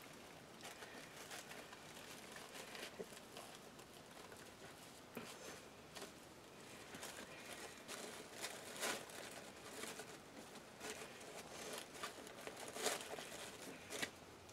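Wired ribbon and plastic deco mesh rustling and crinkling faintly as hands twist and pinch ribbon loops into a bow, with irregular soft crackles and a few sharper ones in the second half.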